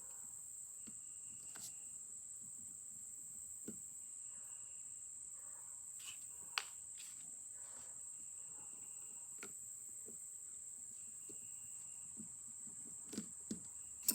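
Scattered small clicks and taps of metal parts being handled while the springs are worked off a Victor M phonograph's spring-motor governor, a few seconds apart, over a steady high-pitched tone.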